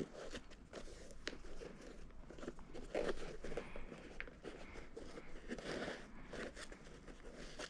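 Faint, scattered rustling and small clicks of new laces being pulled through the eyelets of a Puma MB.01 basketball sneaker as the shoe is handled and laced up.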